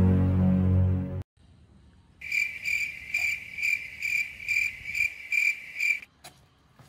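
A held musical chord cuts off abruptly about a second in. After a short silence, a cricket chirps steadily at about two chirps a second, stopping shortly before the end.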